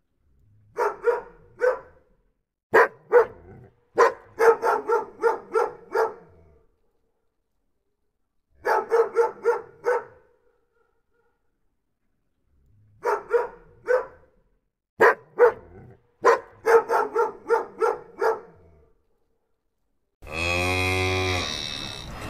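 A dog barking in groups of short barks with pauses between. About two seconds before the end, a cow starts mooing in one long call.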